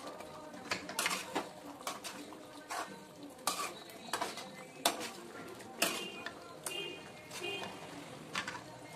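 A ladle stirring a thick mutton curry in a metal kadai, clinking and scraping against the pan at irregular intervals, with a short ringing clink about six seconds in.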